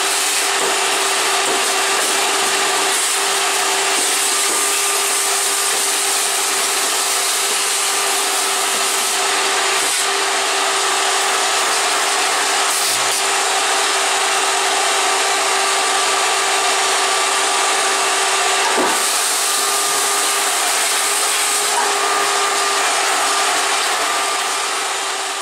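Shop vacuum running steadily, its hose and brush-tipped wand sucking steel chips off a CNC mill's table and vise. It is a constant, even hiss with a steady hum.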